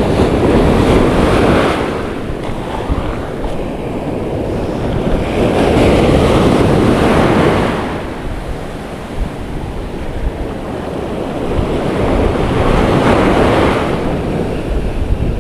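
Ocean surf breaking on a beach: the wash of the waves swells and fades three times, about every six seconds, over a steady low rumble of wind on the microphone.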